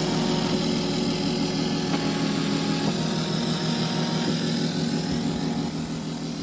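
An engine running steadily at idle.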